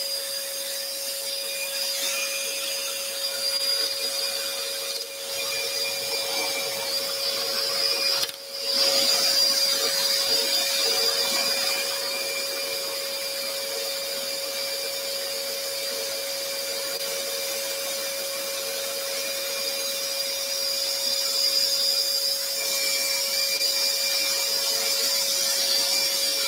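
Dust extractor running steadily with a constant hum and hiss, over a scroll saw cutting tight curves in a wooden bracket. The sound dips briefly about eight seconds in.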